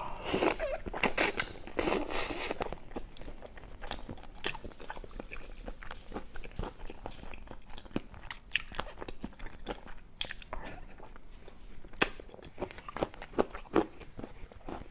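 Close-miked eating of soft braised chicken feet: biting, sucking and chewing, with a run of loud wet mouth noises in the first few seconds, then scattered small clicks and smacks.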